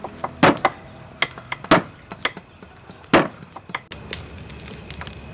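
Cleaver chopping pork on a thick wooden chopping board: a handful of sharp, unevenly spaced chops, the loudest a little after three seconds in. After about four seconds there is a steady hiss with a few faint taps.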